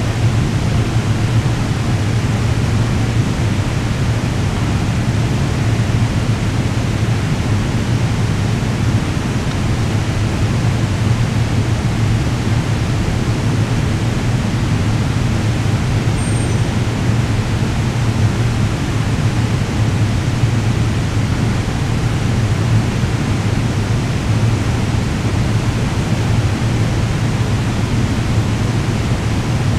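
Steady underground rail station din: a constant low hum under an even hiss, with no change throughout.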